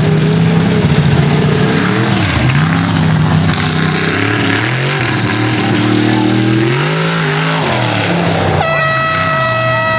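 Mega truck's engine revving hard, its pitch climbing and falling again and again. Near the end a steady high horn-like tone sounds over it.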